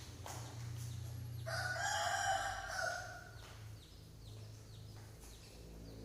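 A rooster crows once, a drawn-out call of about a second and a half starting about a second and a half in, over a steady low hum, with short high chirps coming and going.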